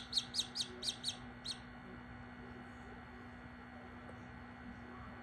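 Australorp chick peeping: a quick run of about eight high, short peeps, roughly five a second, that stops about a second and a half in, leaving only a faint steady hum.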